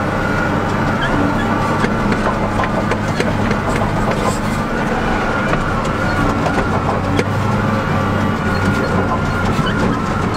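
Wheel loader's diesel engine running steadily as the machine drives over rough dirt, heard from inside the cab, with frequent small rattles and knocks throughout.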